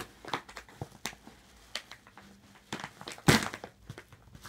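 Crinkling and rustling of a paper mailer package being handled and opened, with scattered sharp crackles and one louder crunch about three seconds in.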